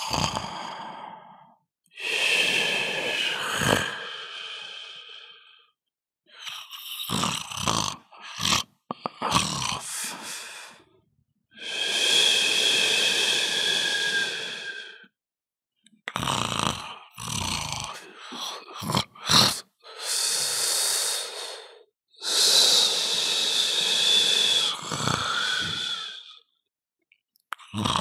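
A person snoring loudly: a series of long snores, each lasting two to four seconds, separated by short silences, with clusters of shorter, broken breaths between them. The longer snores carry a steady whistling tone.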